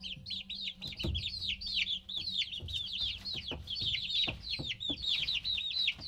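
Baby chicks peeping: a continuous run of short, high, downward-sliding peeps from more than one chick, overlapping at several a second.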